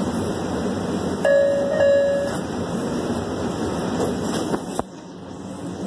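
Metro Red Line subway car's door-closing chime: a two-note ding-dong over the car's steady hum, with the doors sliding shut and a sharp knock a little before the end.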